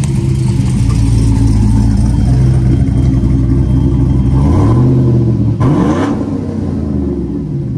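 Chevrolet Silverado 4.8-litre V8 fitted with a Little Chopper camshaft, which has a low lobe separation angle, idling. It is revved up about four seconds in, then revved higher near six seconds before dropping back toward idle.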